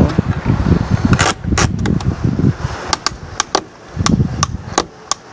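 Ratcheting wheel strap of a Thule OutWay Platform bike rack being pulled tight around a bike's rear wheel: a run of sharp clicks from about a second in, coming quickly in the second half.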